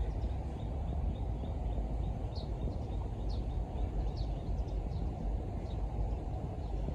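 Birds chirping: short, high, down-slurred notes every second or so, fainter than a steady low rumble of background noise.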